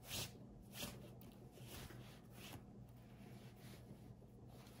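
Faint rustling and brushing of knit fabric strips being handled and pulled through a knot-stitched rag rug, a few soft strokes about a second apart, the first the loudest.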